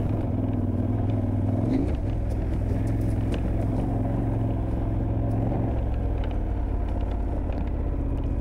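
KTM 1290 Super Adventure's V-twin engine running at a low, steady pace on a dirt forest track. The engine note shifts a little about two seconds in and again near six seconds, with scattered small clicks over it.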